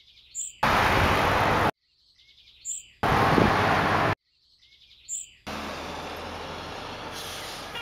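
Edited street ambience: short, high bird chirps, three of them, each in a gap of near silence, alternating with loud blocks of steady street noise about a second long that start and stop abruptly. From about five and a half seconds in, quieter steady traffic noise runs on.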